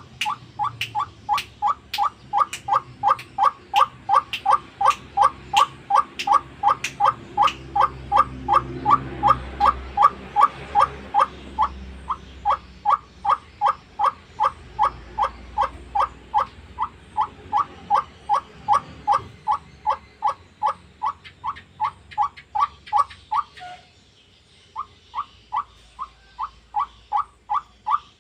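White-breasted waterhen (ruak-ruak) calling: a long, fast, steady series of short rising notes, about two and a half a second, broken once by a pause of about a second near the end.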